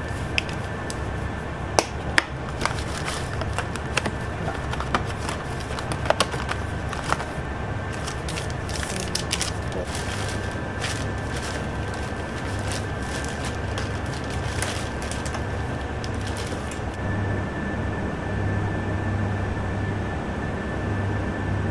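Plastic packaging crinkling and small containers clicking as a takeout order is packed into a plastic carrier bag: irregular sharp crackles and taps that stop about three-quarters of the way through, over a steady low hum with a faint high whine.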